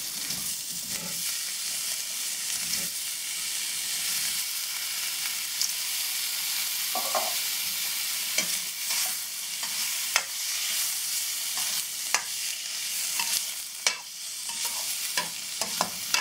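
Paneer cubes frying in butter in a kadai, with a steady sizzle and scattered clicks and scrapes of a spatula stirring them.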